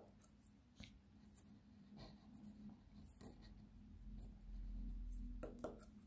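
Faint scratching and light taps of a pen tip drawing on paper, over a steady low hum. A low rumble comes in about four seconds in and lasts about a second and a half.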